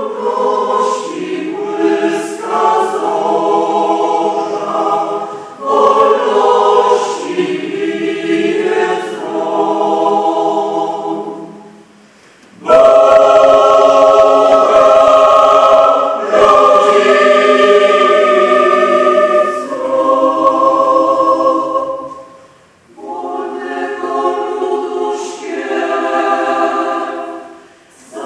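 Mixed choir of men's and women's voices singing in a church, in phrases broken by short pauses. It is loudest about halfway through.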